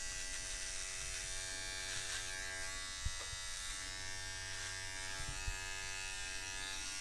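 Electric beard trimmer running steadily as it trims a moustache on dry hair, with a couple of faint clicks about three and five seconds in.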